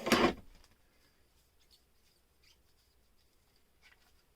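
A short rustling scrape at the start, then quiet with a few faint small ticks: handling noise as trading cards are moved.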